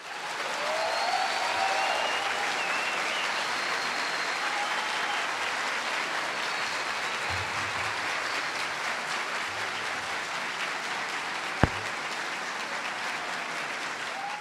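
Large audience applauding steadily, with a few cheers in the first few seconds and a single sharp knock near the end.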